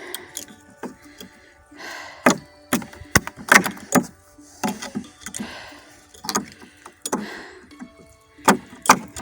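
Hammer knocking and prying at a badly driven nail in a wooden board, sharp knocks with short scraping sounds of the nail and wood between them.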